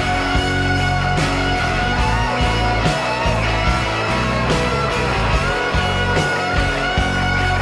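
Music from the song, an instrumental stretch without singing: held notes with occasional hits.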